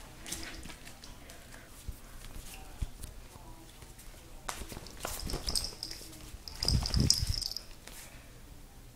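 A house cat scuffling with a person's hand on a tile floor: scattered light taps and knocks, then a louder stretch a little past halfway with a hissing noise and rumbling handling of the phone.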